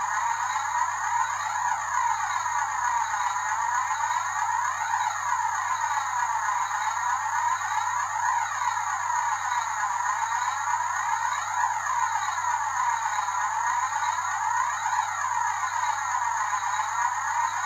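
Background music: a steady synthesized drone with a sweeping swell that repeats about every second and a half.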